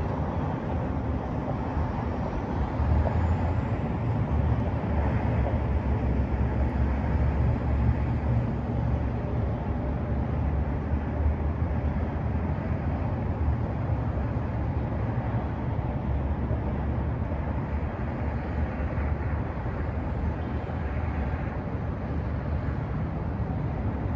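Wind buffeting the microphone: a steady, fluctuating low rumble with an even hiss above it and no clear pitch.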